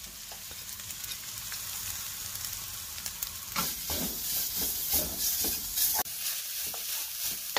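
Freshly grated coconut sizzling in hot ghee in a wok, being fried toward light brown. From about halfway through, a wooden spatula stirs it with repeated scraping strokes, a few each second.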